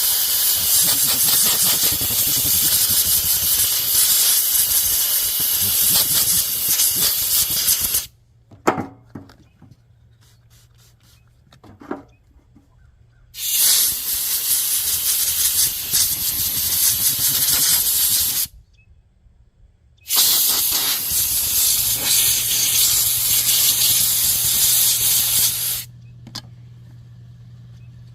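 Compressed-air blow gun blasting in three long hissing bursts, several seconds each with short pauses between, blowing a wetted heater part clean. A low steady hum comes in during the last burst and carries on after it.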